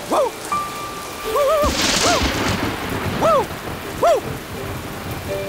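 Rain falling steadily, with a clap and rumble of thunder about two seconds in. Over it come several short rising-and-falling whining tones.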